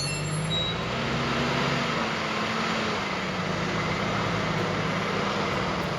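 Steady mechanical rumble with a low, slightly wavering engine-like hum.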